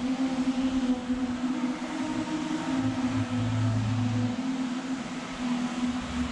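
A steady drone of several held tones over a light hiss, with a deeper hum joining for about a second and a half in the middle.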